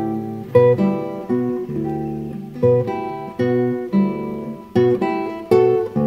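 Background music on acoustic guitar: plucked notes and chords that ring and fade, in an unhurried pattern.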